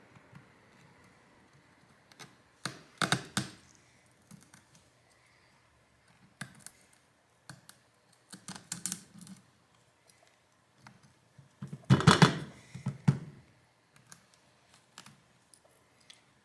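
Irregular small clicks and scrapes of a pry tool digging broken shards out of a Poco X3 NFC's cracked rear camera glass, with louder clusters about three seconds in and about twelve seconds in.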